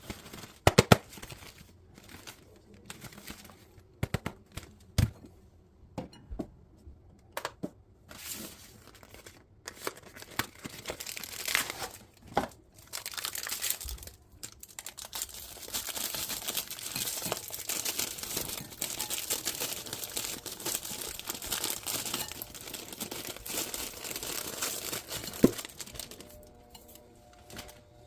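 Snack wrapper being handled, crinkled and torn open: scattered sharp crackles at first, then dense continuous crinkling for about ten seconds before it dies down near the end.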